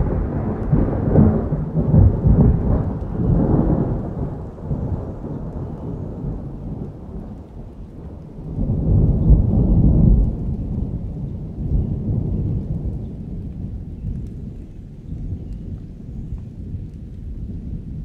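Thunder rumbling over steady rain in a summer thunderstorm. A long rumble fades over the first few seconds, a second one swells up about nine seconds in, then it dies away to the rain.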